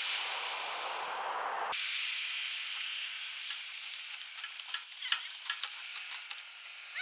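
Old, worn ratchet strap being worked by hand: a rapid, uneven run of sharp metal clicks from the ratchet for several seconds. Before it, a steady hiss cuts off suddenly almost two seconds in.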